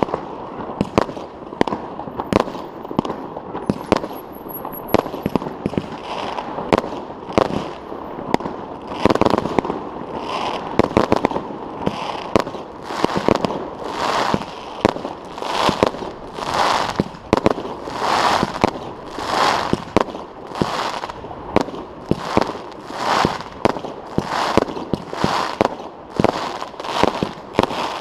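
Fireworks going off overhead: sharp bangs of salutes, and from about nine seconds in a steady series of shots, about one every second and a bit, each with a short rushing burst.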